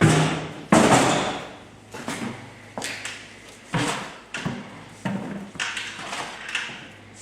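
A string of sudden knocks and clatters, roughly one every half second to second and loudest in the first second, from calf-feeding pails and gear being handled, over a faint low steady hum.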